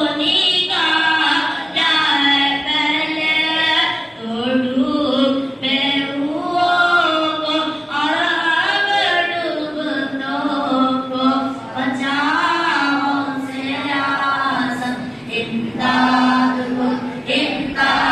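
A boy's voice singing an Urdu manqabat in praise of Ghaus-e-Azam, unaccompanied. The melody moves through long held, wavering notes.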